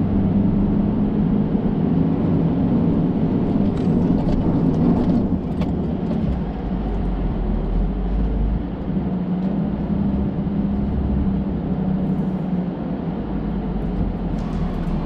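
A six-wheeler 4x4 truck's engine running steadily as it drives, with a few knocks and rattles about four to six seconds in.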